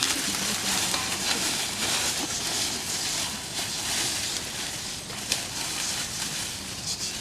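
A steady rustling crackle that swells and fades in patches, with no voices.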